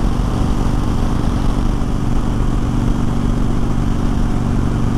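Motorcycle V-twin engines running steadily at highway cruising speed, an even engine hum under constant wind and road noise.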